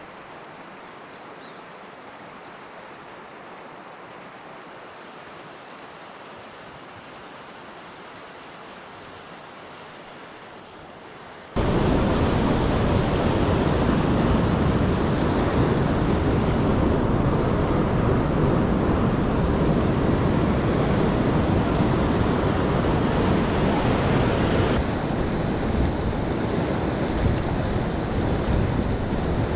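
Steady rush of flowing river water in rapids, fairly faint at first, then suddenly much louder about a third of the way in and staying loud.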